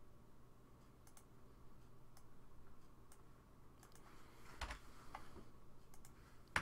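Faint, scattered clicks of a computer keyboard and mouse: a few separate keystrokes and button clicks spread out, the loudest a little past halfway.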